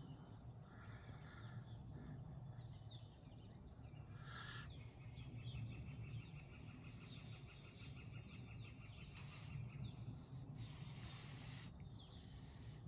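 Faint songbirds singing and calling in the forest: many short high chirps, with a long rapid trill starting about five seconds in and lasting about four seconds, over a steady low background rumble.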